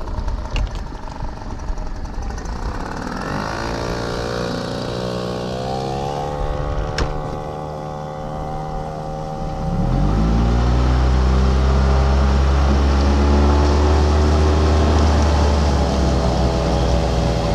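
Small outboard motors pushing inflatable dinghies across open water. One speeds up, rising in pitch, about three seconds in. Then a louder motor close by revs up around ten seconds in and runs steadily at speed.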